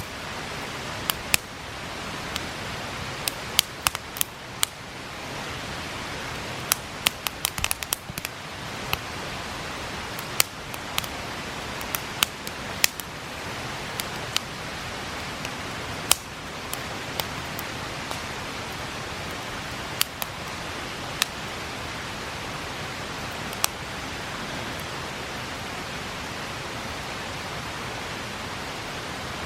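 Wood campfire crackling, with sharp irregular pops and snaps that come often in the first half and only now and then later, over a steady rush of river water.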